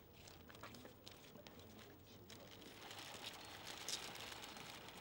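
Faint crinkling of a bouquet's cellophane wrapping as it is handled and laid down, after a few light clicks and shuffles; the crinkling grows louder about three seconds in.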